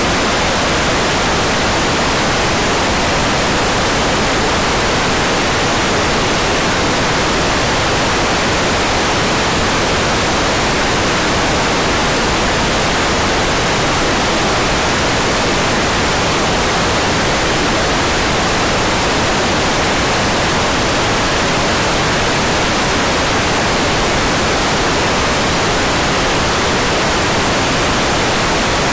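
Hair dryer running steadily on one setting: an even rush of blown air with no change in level or pitch.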